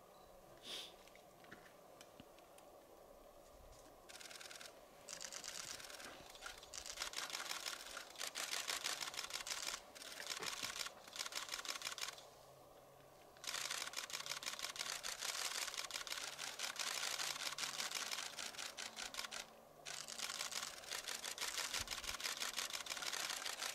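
Rapid, dense clicking in runs lasting a few seconds each, with short pauses between, starting about five seconds in.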